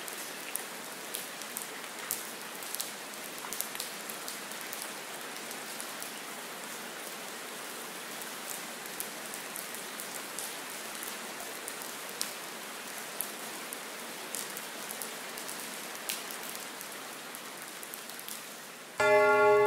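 Steady rain with scattered drop ticks, a rain soundscape under the performance. Near the end, bell-like chime tones start suddenly and are louder than the rain.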